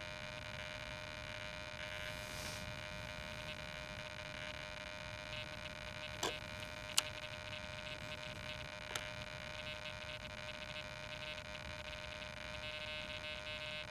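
Steady electronic hum and whine at several fixed pitches, with three faint short clicks in the middle. No propellers are heard spinning: the drone's motors have not started.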